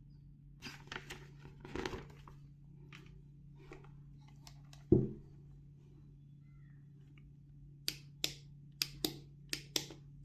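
Hands handling a small unboxed travel steam iron and its packaging: light rustling and knocks, one heavy thud about five seconds in, then a quick run of about seven sharp clicks near the end.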